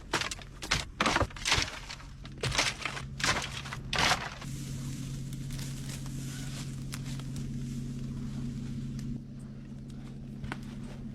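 Dry sticks of firewood being snapped by hand, a quick series of sharp cracks through the first four seconds. After that, a steady low drone.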